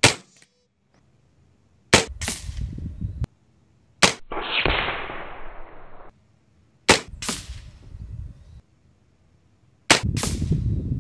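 FX Monsoon regulated semi-auto PCP air rifle firing .22 pellets: five sharp shots two to three seconds apart, each followed a fraction of a second later by a second crack. A rushing noise trails the third shot for about two seconds.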